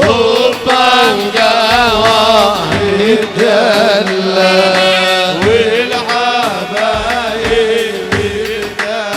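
Arabic wedding music: a singer's wavering, ornamented vocal line over sustained accompaniment and a drum beat.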